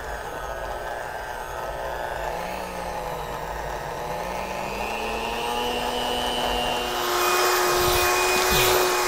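Electric hand mixer creaming butter with sweetener until light and fluffy, its motor whine wavering in pitch as the beaters work through the mix. About seven seconds in the whine jumps higher and louder.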